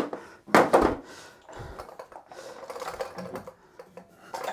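Light knocks and rattling clicks from a wooden base on casters with a steel pole being rocked by hand to test that it stands firm, with one louder knock about half a second in.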